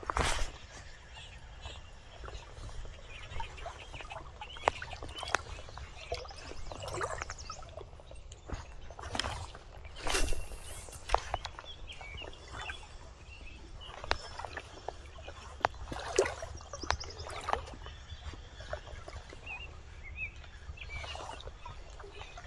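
River water splashing and trickling in irregular small bursts around a wading angler, with birds calling now and then.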